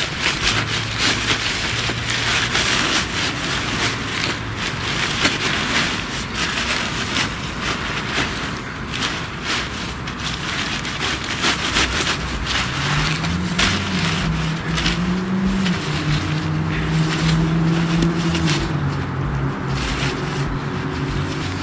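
Fabric rustling and scraping as a folded winter ice-fishing tent is pulled and worked into its carry cover, in many quick crinkling rustles. From a little past the middle a low motor drone rises and then holds steady for several seconds.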